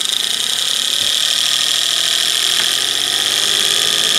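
Holmes HAWF2021 twin window fan running with a loud, steady, fast rattling noise from one of its two fans, the fault it has developed; it sounds like something is caught in the blade.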